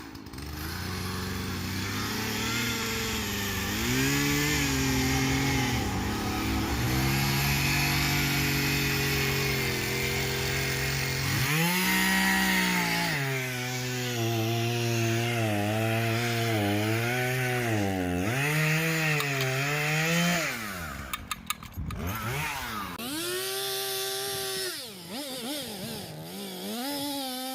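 Two-stroke chainsaw cutting into a tree, the engine held at high revs and then wavering in pitch as the chain bites and bogs in the wood. About two-thirds through it drops off with a few clicks, then is revved up and down again twice.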